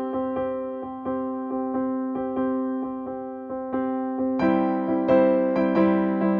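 Background music: gentle keyboard chords struck in a steady pulse of about three notes a second, growing fuller and louder about four seconds in.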